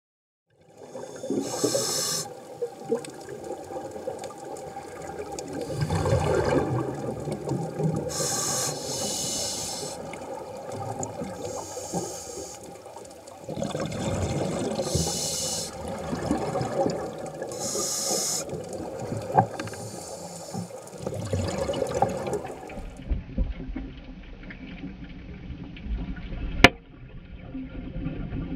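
Scuba regulator heard underwater: bursts of exhaled bubbles every few seconds over a muffled, rushing background. Late on the bubbling stops, giving way to a low rumble and one sharp click.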